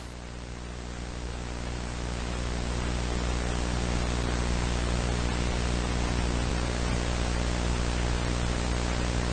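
Steady analog static hiss with a low electrical hum under it, swelling up over the first couple of seconds and then holding even.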